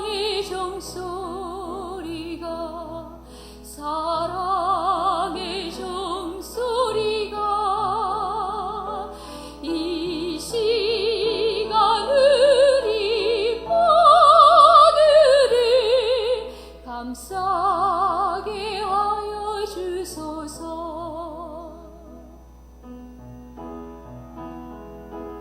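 A woman singing a Korean hymn solo in a classical, operatic style with wide vibrato, accompanied by piano. Her voice stops about three-quarters of the way through, leaving the piano playing softly on its own.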